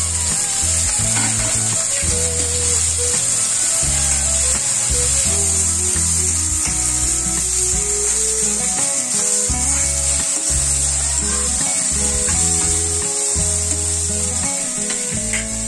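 Background instrumental music with a bass line that steps from note to note about once a second, over a steady high hiss.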